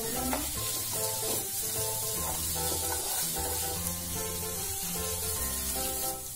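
Instrumental background music, with oil sizzling underneath as a wooden spatula stirs onions and green chillies frying in a non-stick pan.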